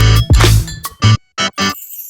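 Background electronic music with a heavy bass beat and drum hits, cutting out briefly near the end.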